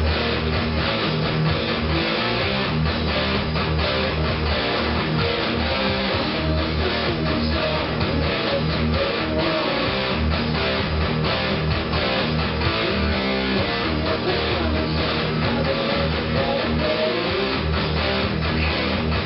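Electric guitar playing a heavy metal riff, continuous and loud.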